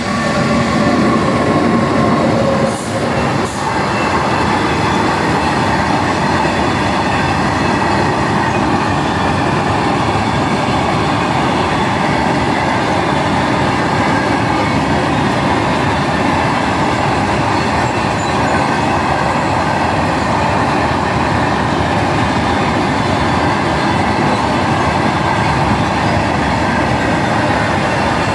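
Diesel train running steadily, with a constant rumble and hiss. An engine drone stands out over the first few seconds, and there are two short clicks about three seconds in.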